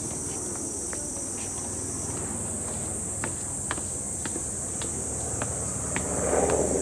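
Cicadas droning in a steady high-pitched hiss, with footsteps on stone steps ticking through it and a brief louder noise near the end.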